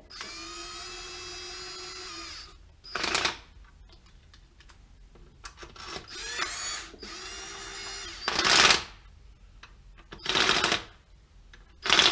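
A cordless drill-driver running down connecting-rod cap bolts, nipping them up only lightly. Its motor gives a steady whine for about two seconds, then whines again rising in pitch, with four short loud bursts between.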